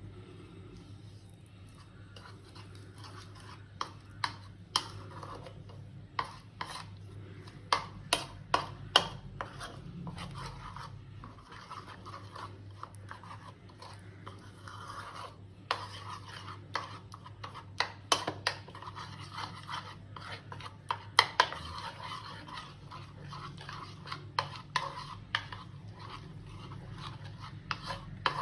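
Spoon stirring a thick flour-and-water batter in a bowl: irregular sharp clicks of the spoon against the bowl and soft scraping, with a low steady hum underneath.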